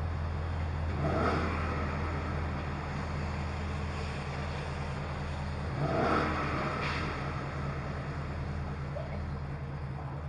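Car engine idling steadily at a standstill, a low even hum, with two brief louder swells about a second in and again about six seconds in.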